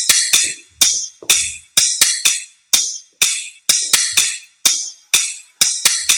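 Music made of a steady beat of bright, jingling percussion hits, about two a second, each ringing briefly and fading.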